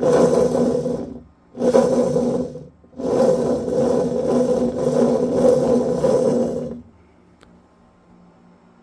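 Worn bearings in a Whirlpool Cabrio washing machine's gear case grinding and rumbling as the shaft is spun. There are three runs, the last and longest stopping about seven seconds in. The bearings are worn out ("toast").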